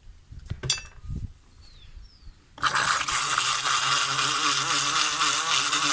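Homemade blender built from beer cans and a small electric motor: a few handling knocks and a click, then about two and a half seconds in the motor switches on and runs steadily with a loud whirring buzz.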